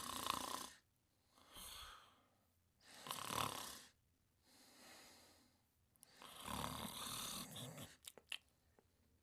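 Snoring in a slow rhythm: three loud snores about three seconds apart, each of the first two followed by a softer breath out, then a few faint clicks near the end.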